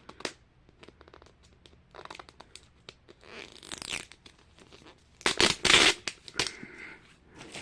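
Plastic packaging being torn open and crinkled by hand in short, irregular rustles, the loudest tear about five seconds in.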